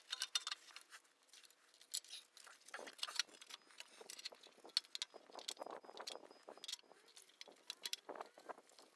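Faint, irregular metallic clicks and light scraping from parking brake shoes and their hardware being handled and fitted on a rear axle backing plate, busier for a couple of seconds past the middle.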